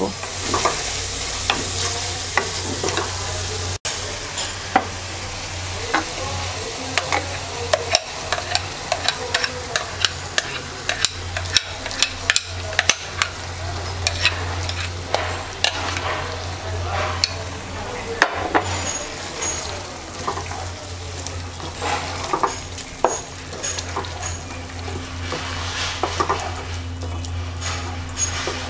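Boiled mashkalai (black gram) dal being stir-fried with hilsa fish in a masala-coated pot. It sizzles steadily while a spatula clicks and scrapes against the pot in frequent, irregular strokes, over a steady low hum.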